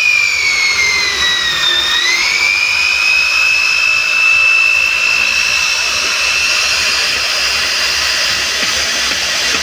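CNC router spindle running with a high-pitched whine over the hiss of the bit cutting wood. The whine dips in pitch about two seconds in, then rises back and holds steady.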